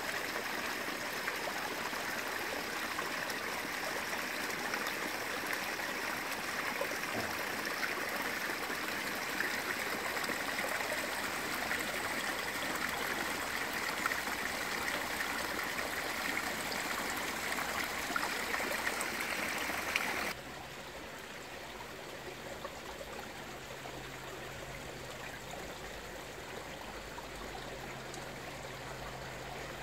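Garden pond fountain and small rock waterfall: steady splashing and trickling water. About 20 seconds in the water sound drops suddenly to a quieter, duller rush, and a low steady hum comes in.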